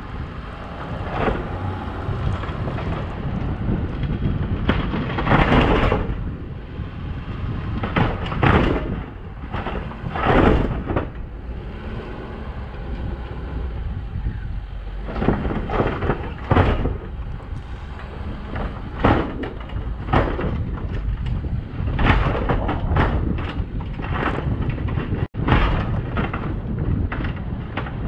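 Plow truck driving over a snow-covered road: a steady low engine and road rumble, with irregular loud rushes of noise every second or two.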